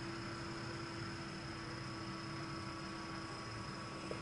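Steady low electrical hum and hiss with a few faint steady tones: background mains hum at a soldering bench.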